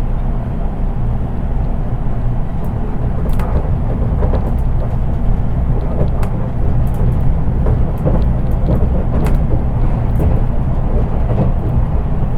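Running noise inside a JR East 183 series electric train, heard from the unpowered KuHa 183 driving trailer car: a steady low rumble of wheels on rail, with scattered faint clicks and ticks. Because the car has no motors, the sound is plain and subdued, without motor whine.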